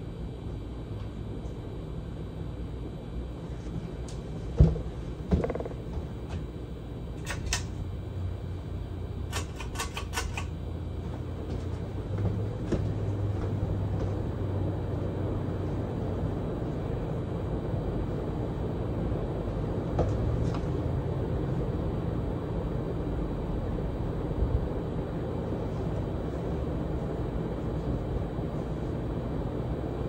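Hunter Original 52-inch ceiling fan with a PSC motor, running with five blades fitted: a steady low motor hum under a rush of air, growing a little louder about twelve seconds in. A sharp knock comes about four and a half seconds in, followed by a lighter knock and brief high rattles over the next several seconds.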